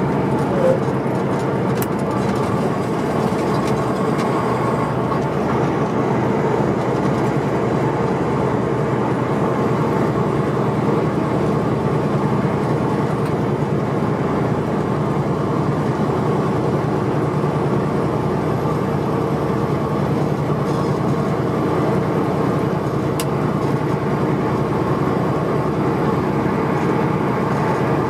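Semi-truck cruising at highway speed: a steady drone of diesel engine and road noise that holds even throughout, with no shifting or braking.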